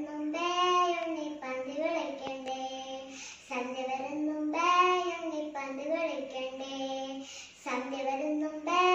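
A young girl singing a children's Onam song in Malayalam, unaccompanied, in phrases of about four seconds with a short breath between them.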